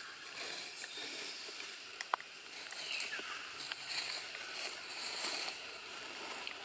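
Outdoor ambience of steady rustling noise, with a sharp click about two seconds in and one short, falling, high-pitched call about three seconds in.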